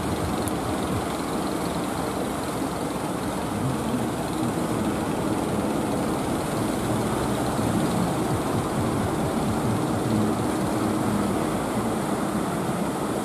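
Steady rush of small waves breaking on the beach, with a low drone of fishing-boat engines offshore.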